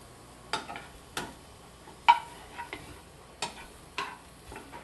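Metal tongs clicking and knocking against a frying pan as shrimp are turned, in about seven sharp, irregular clicks; the loudest knock comes about two seconds in.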